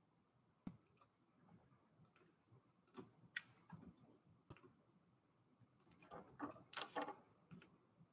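Faint scattered clicks and taps over near-silent room tone, with a brief flurry of clicks about six to seven seconds in.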